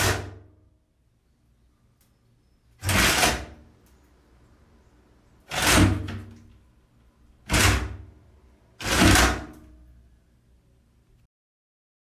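An old window being opened and shut repeatedly: five loud strokes, each starting sharply and dying away over about half a second, spaced two to three seconds apart.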